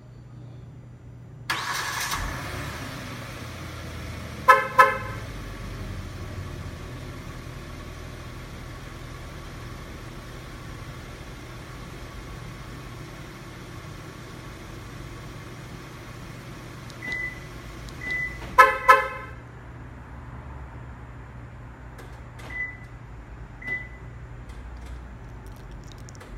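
A Kia K7 is started by a remote-start alarm. The engine fires about a second and a half in and settles to a steady idle, and the horn gives two short toots. Later two short high beeps sound, the horn toots twice more and the engine shuts off, and two more high beeps follow.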